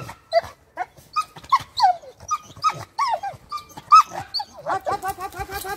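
Young Presa Canario dog whining and yelping in a string of short, high calls, two or three a second. Near the end they run together into a quicker, wavering whine.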